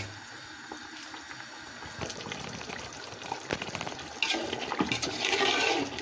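Chicken simmering in a spiced yogurt gravy in a large metal pot: a steady bubbling with many small pops. From about four seconds in, a spoon stirs through the gravy and the sound gets louder.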